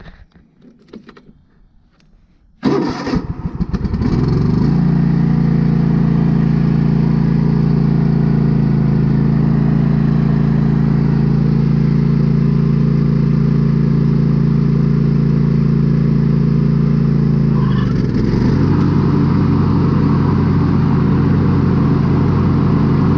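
Craftsman T240 lawn tractor engine starting about two and a half seconds in, catching almost at once and then running steadily. About eighteen seconds in the engine note dips and shifts briefly as the mower blades are engaged, then runs steady again.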